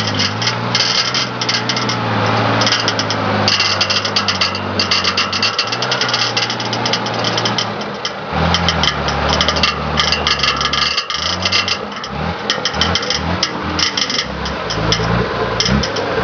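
Off-road 4x4 engine running, steady for the first half, then its pitch shifting up and down in uneven steps as it is revved. A constant rattling clatter runs alongside.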